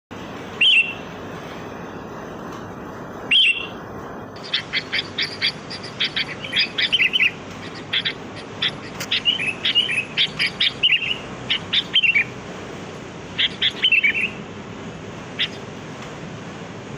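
Sooty-headed bulbuls (kutilang) calling: two single calls in the first few seconds, then a fast run of bright chirping phrases for about ten seconds, thinning out near the end.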